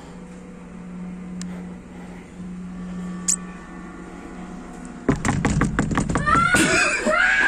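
A low steady hum, then about five seconds in a sudden loud burst of banging and knocking followed by shrill screams that rise and fall in pitch.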